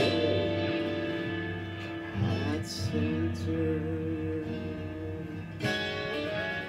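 Guitar played: chords strummed and left to ring, with new chords struck about two seconds in and again near the end.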